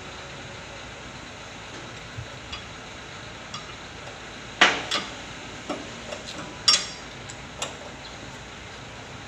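Steel combination wrench clinking against a nut and the steering linkage metal while the nut is turned: about nine sharp metallic clinks at uneven intervals, the loudest a little before halfway and about two-thirds through, over a steady background hiss.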